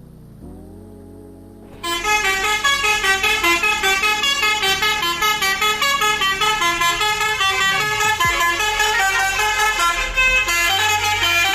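Bus telolet multi-tone horn of the 'Basuri' type playing a fast tune of short stepped notes. It starts loudly about two seconds in, after a quieter low hum.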